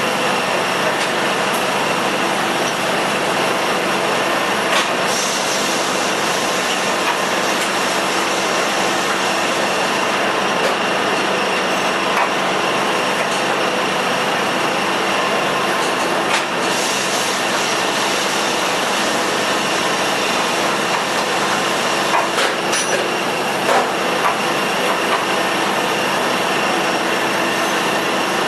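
Automated robotic grinding and polishing machinery running steadily: a continuous loud hiss over a constant machine hum, with a few sharp clicks.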